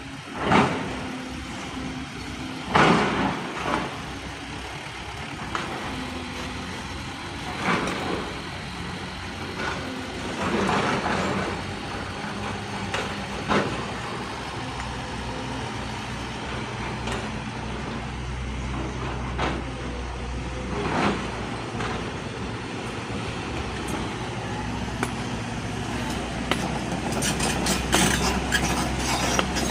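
Excavator working: a steady diesel engine drone with loud hissing, scraping surges every few seconds, and a run of sharp clatter near the end.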